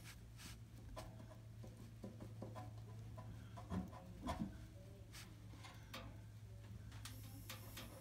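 Faint metal scraping and small clicks of a long thin metal tool working inside a furnace blower wheel and its sheet-metal housing, with two louder knocks about four seconds in, over a low steady hum.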